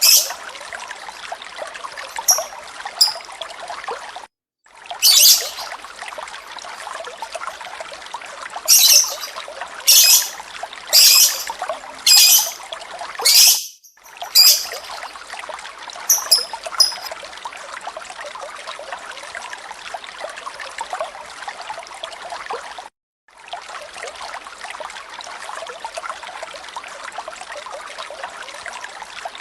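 Running water trickling steadily, with about a dozen short, loud, shrill bird chirps scattered through the first half. The water cuts out briefly three times, and after about 17 s it runs on alone without birds.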